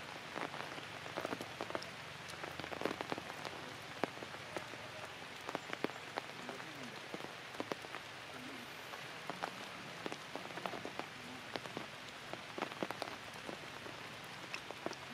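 Light rain falling on forest leaves: a steady soft hiss with many irregular, sharp drop clicks as water strikes the foliage.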